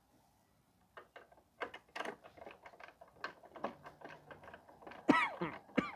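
Irregular clicks, taps and knocks of hand tools and wiring being handled during horn wiring work, with a brief squeak sliding down in pitch near the end, the loudest sound.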